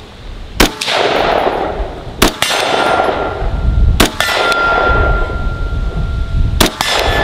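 Gunshots fired at steel targets, some in quick pairs about a second and a half to two and a half seconds apart, with hit steel plates ringing on after the shots.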